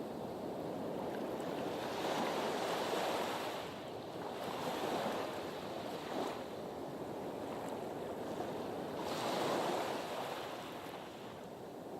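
Sea waves washing in at a harbour breakwater: a steady rush of surf that swells and eases every two to three seconds.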